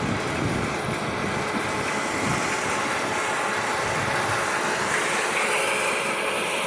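Corn combine running steadily while harvesting: dense mechanical noise of engine and threshing machinery, its tone stepping slightly higher about five seconds in.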